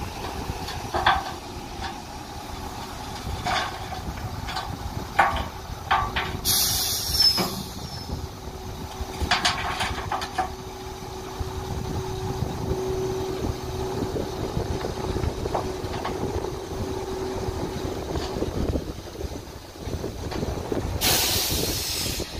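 Tipper truck's engine running as the hydraulic ram holds the loaded body tipped and sand slides out, with a steady whine for most of the time and several metallic knocks. Two short bursts of air hissing, about 7 seconds in and near the end.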